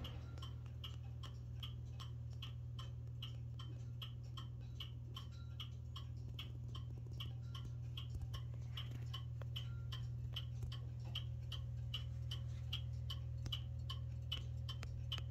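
Ansonia gilt figural mantel clock ticking steadily, its open escapement beating a regular tick-tock of about two to three ticks a second over a low steady hum.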